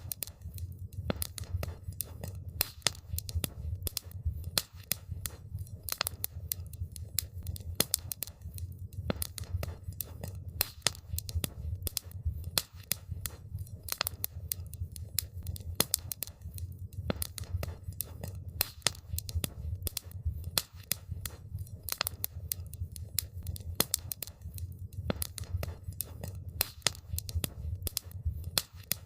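Wood campfire crackling: a dense run of irregular sharp pops and snaps over a low, steady rumble.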